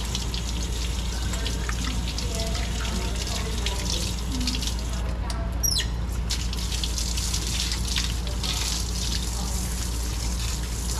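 Water spraying from a rubber hose as a tiled concrete sink is rinsed out, a steady hiss and splash that shifts as the hose is moved about, over a steady low hum.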